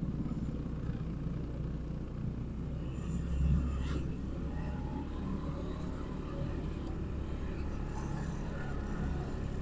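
Motorcycle engine running steadily while riding at low speed, heard as a low, even rumble that swells briefly about three and a half seconds in.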